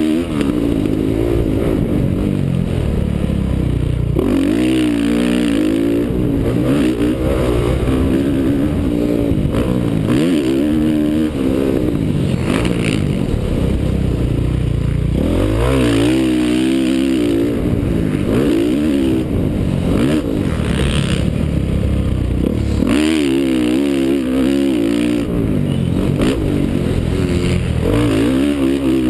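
Honda CRF450R's single-cylinder four-stroke engine being ridden hard on dirt. Its pitch rises and falls again and again as the rider opens and closes the throttle and shifts through corners and jumps.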